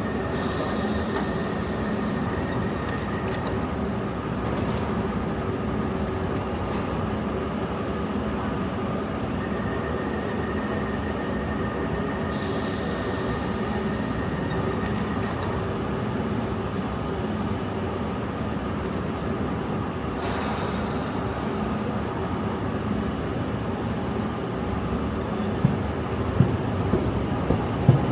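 London Underground train at the platform, with a steady hum of motors and equipment and wheel squeal. Brief hissing comes three times, and sharp clicks near the end.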